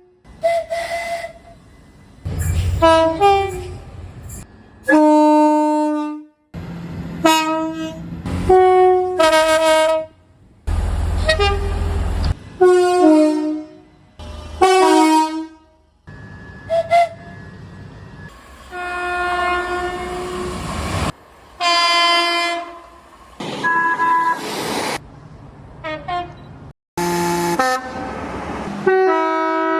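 Train horns blowing multi-note chords in a rapid series of short clips, each cut off abruptly by the next; some blasts sound over the low rumble of a passing train.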